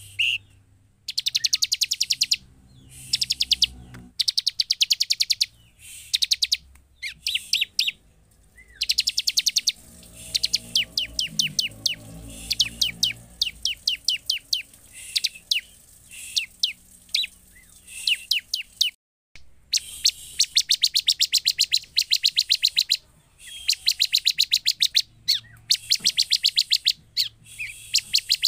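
Bar-winged prinia (ciblek) singing: fast, chattering trains of sharp high notes in bursts of one to two seconds, with short pauses between them and one longer run near the middle.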